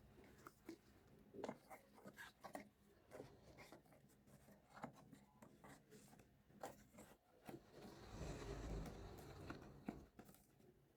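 Miniature plastic toy play-set pieces being handled: scattered light clicks and taps, with a stretch of soft rubbing or rustling about eight seconds in.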